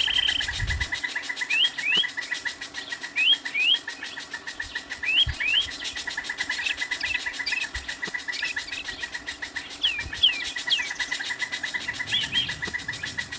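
A bird chirping: short rising notes, mostly in pairs, repeated every second or two. Under it runs a steady, fast, even pulsing sound.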